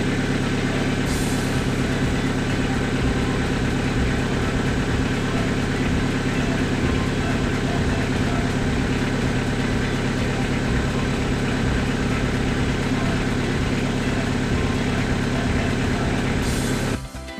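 Fiat Scudo van engine idling steadily, heard from inside the cab. It cuts off abruptly near the end.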